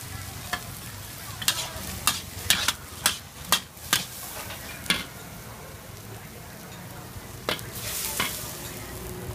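Metal ladle and spatula clanking and scraping against a steel wok as green vegetables are stir-fried, over a steady sizzle. A quick run of clanks comes in the first half, and two more near the end.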